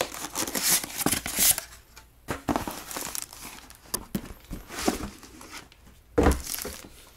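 Styrofoam packing being pulled out of a cardboard box: irregular rustling, scraping and crinkling of packaging, loudest in the first second and a half, with a single thump about six seconds in.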